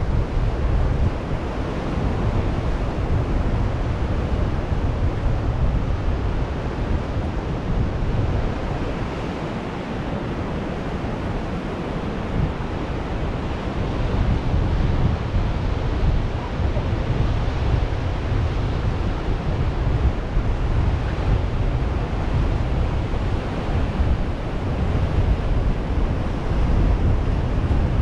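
Ocean surf washing onto a sandy beach in a steady rush, with wind buffeting the microphone in low gusts.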